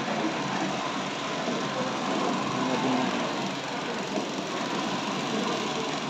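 Diesel engine of an Escort F17 Farana pick-and-carry crane running steadily.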